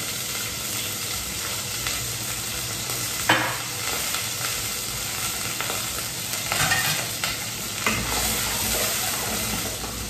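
Sliced onions frying in hot oil in a pan, a steady sizzle, with a few short knocks about three seconds in and again near the middle.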